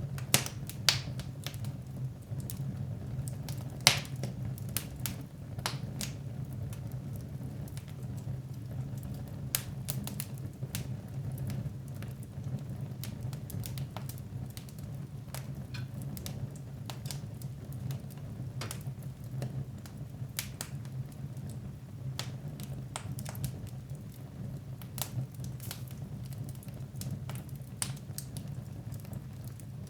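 Wood fire in a fireplace crackling, with irregular sharp pops and snaps over a steady low hum. A few louder pops come about half a second, one second and four seconds in.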